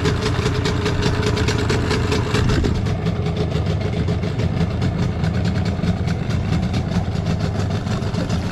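Small outboard motor on an inflatable dinghy idling steadily.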